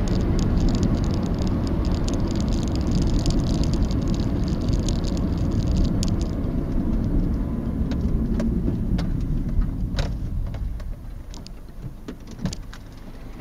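Road and engine noise of a moving car picked up by a dashcam inside the cabin: a steady low rumble with many small sharp clicks and rattles. The rumble eases off near the end.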